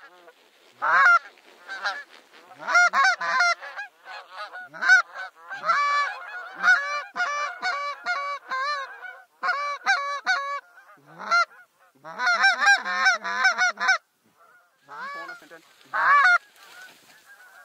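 A flock of wild geese honking as they circle and come in to land, many calls overlapping in quick runs, with a short lull near the end.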